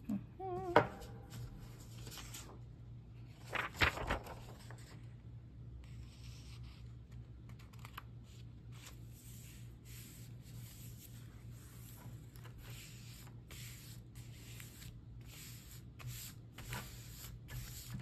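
Hands rubbing and smoothing a freshly glued sheet of paper flat onto a planner page, a dry rustling swish repeated many times. Two sharp knocks close together about four seconds in.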